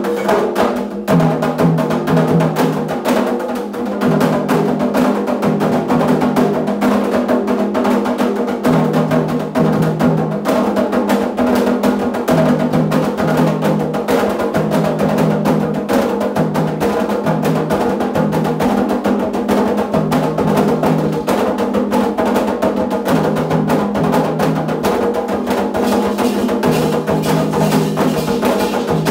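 Candomblé ritual drumming on atabaque hand drums, a fast, dense beat that keeps going without a break, with a low melody stepping between a few notes above it.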